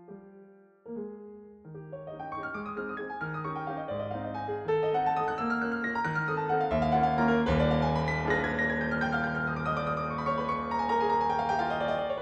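Background piano music: a few sparse notes at first, then fuller, flowing passages from about two seconds in.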